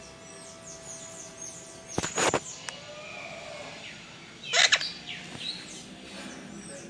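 Small birds chirping in short, high, repeated calls, broken by two louder harsh noisy bursts about two seconds in and again about four and a half seconds in.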